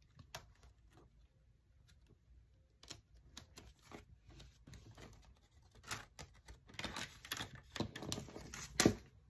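Paper banknotes and clear plastic binder pockets being handled: soft rustles and light taps, sparse at first and busier over the last few seconds, with one sharper tap near the end.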